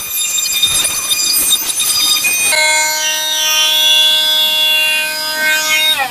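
Parkside PAMFW 20-LI B2 cordless oscillating multitool working at glued-down carpet, with a rough, uneven sound. About two and a half seconds in it settles into a steady high buzz, then winds down in pitch near the end as it is switched off.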